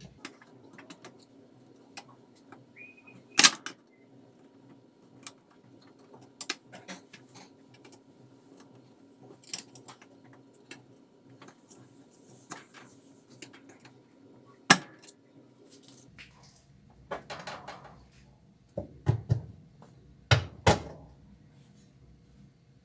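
Intermittent clinks, clicks and knocks of hand tools and metal washing-machine parts being handled, with two sharper knocks and a quick run of knocks near the end. A faint steady hum underneath stops about two-thirds of the way through.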